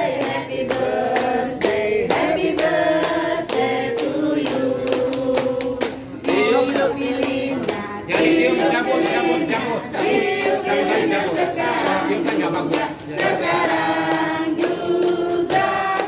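A group of people singing a birthday song together, clapping along in time.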